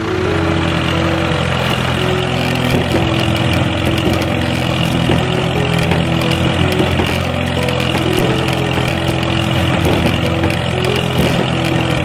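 Tractor engine running steadily with a low hum, its pitch shifting a little in steps as it pulls.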